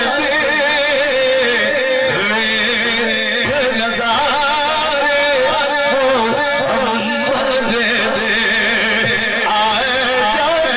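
A man singing a naat, Urdu devotional poetry in praise of the Prophet, into a microphone. He holds long notes with a wavering vibrato and ornamental runs.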